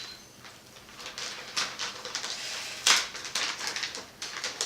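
Crinkling and rustling of packaging as a motherboard is unboxed: tape, cardboard and anti-static bag handled in short irregular crackles, the sharpest about three seconds in.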